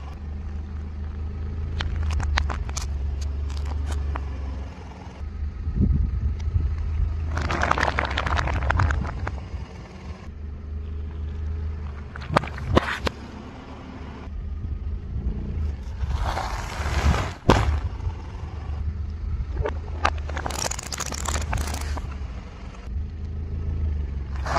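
A car tyre rolling slowly over a series of objects, stacked white cups, a snack bag and a toothpaste tube, and crushing them: bursts of crunching and crackling with sharp snaps, over the low steady hum of the car. The sound changes abruptly several times as one crush gives way to the next.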